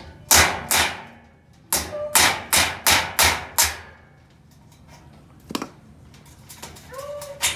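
Hammer driving a concrete nail through galvanized metal furring into the wall. There are sharp, ringing metallic blows: two near the start, then a quick run of six, and a single lighter tap later.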